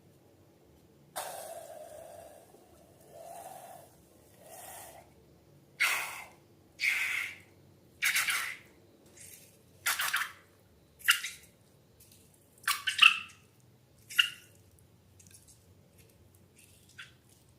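Slime making a run of short wet squelching and dripping sounds, roughly one a second, then only a few faint clicks near the end.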